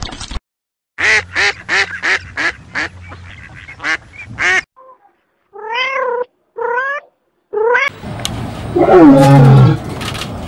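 A run of about eight short animal calls in quick succession, then kittens meowing three times, then a lion giving a loud roar that falls in pitch near the end.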